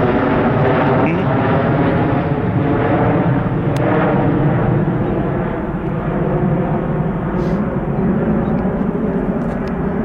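Airliner engines running loud and steady, then slowly fading over the second half.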